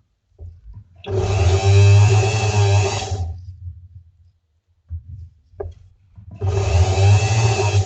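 Handheld rotary power tool spinning a wool polishing bit loaded with ZAM compound against a gold-filled wire ring. It runs twice for about two seconds each, with a few faint clicks in between.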